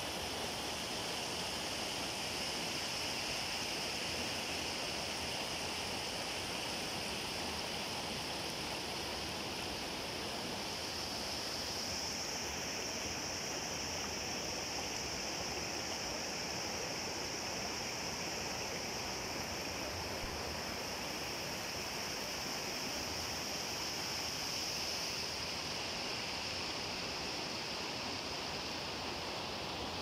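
Spring water flowing fast and shallow over rocks: a steady, even rush of water.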